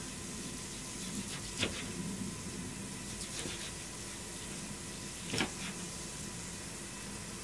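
Deba knife cutting raw chicken on a plastic cutting board: a few short knocks of the blade against the board, the loudest about five seconds in, over a steady low hiss.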